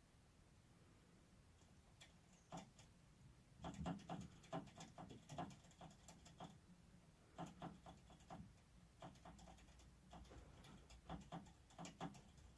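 Faint scratchy rustling and quick clicking in short clusters from baby rabbits shifting about on straw and a cloth bed, starting about two seconds in and coming in bouts.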